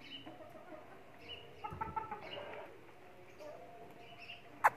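Domestic hens clucking softly while they feed, with a short run of louder calls about two seconds in. A single sharp knock right at the end.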